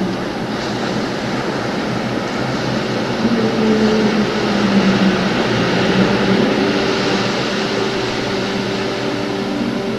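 Slow ambient music with sustained low tones under a steady rushing noise that swells through the middle and eases off near the end.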